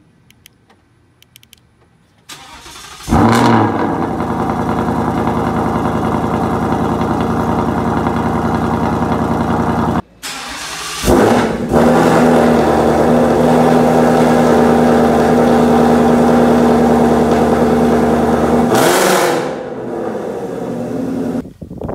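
Ford Mustang V8 started twice: first on a Ford Performance Borla cat-back exhaust, catching about three seconds in and settling into a loud, steady idle; then, after a cut, with long-tube headers added, starting again about eleven seconds in and idling with a strong low drone that drops in level near the end.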